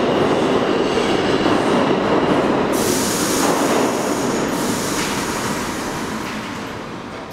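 Subway train running in the station: a steady rumble of wheels on rail, with a high hiss joining about three seconds in, and the noise fading away over the last few seconds.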